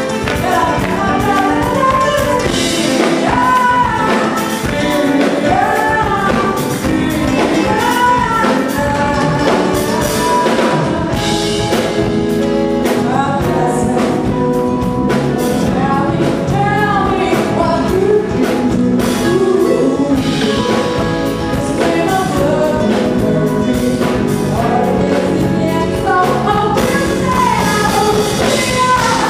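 Live band playing a jazzy, soulful mid-tempo song, with a woman singing lead into a microphone over keyboards, electric guitar and a drum kit keeping a steady beat.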